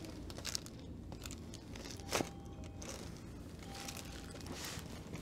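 A single sharp crack about two seconds in from a chiropractic adjustment of the upper spine: a joint releasing. A smaller click comes earlier, and there is faint rustling and crinkling throughout.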